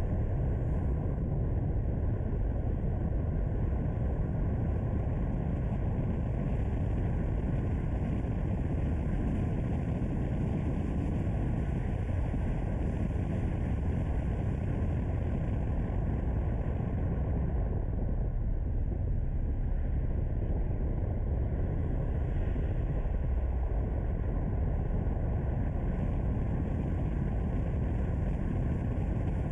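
Car driving at a steady pace: a constant low rumble of engine and road noise.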